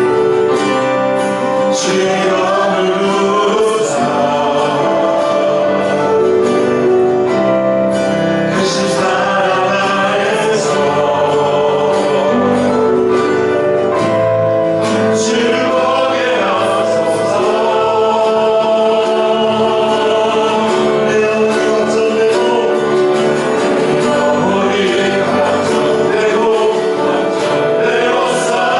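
Church praise team singing a Korean worship song together, the voices carried over steady instrumental accompaniment.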